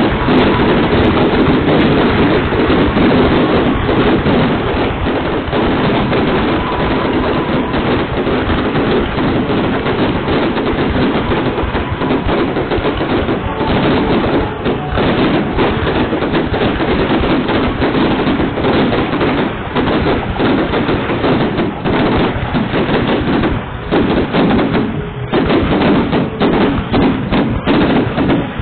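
Fireworks display: a dense, continuous barrage of bangs and crackling, breaking into more distinct separate bangs in the second half.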